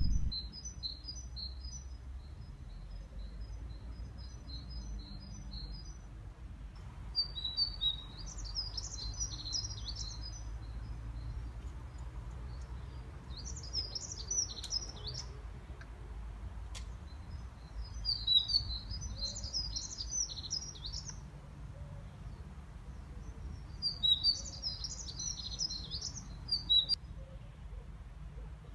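Songbirds singing. A high note is repeated rapidly for about six seconds, followed by four short bursts of busy twittering song a few seconds apart.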